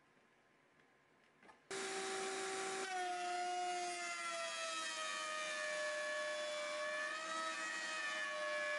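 Table-mounted router switched on a little under two seconds in, then running with a steady high whine as a 3/4 inch mortising bit cuts a rabbet in MDF; the whine sinks slightly in pitch over the next few seconds while the piece is fed past the bit.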